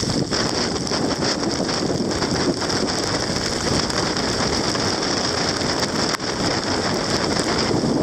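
Strong 20 to 30 knot wind rushing across a sailboat's deck and rigging and buffeting the microphone, with blown spray hissing. A steady, loud rush with no letup.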